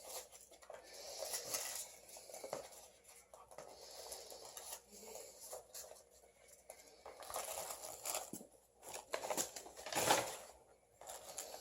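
Packing peanuts and packaging rustling and crinkling as hands dig through a shipping box, in irregular bursts with a few sharper clicks, loudest around ten seconds in.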